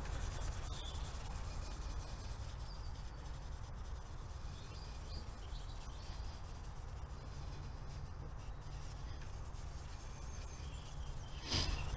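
Fine 0000-grade wire wool rubbing over the alloy engine casing of a Royal Enfield Classic 350 as it is polished: a soft, steady scrubbing, with faint bird chirps now and then.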